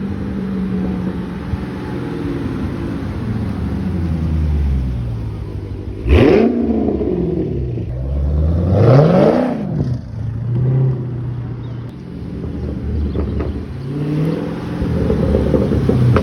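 Dodge Challenger Scat Pack's 392 (6.4-litre) HEMI V8, its mid mufflers cut and resonators removed, idling and being revved. There is a sharp blip about six seconds in, a rev that rises and falls around nine seconds, and a smaller rev near the end.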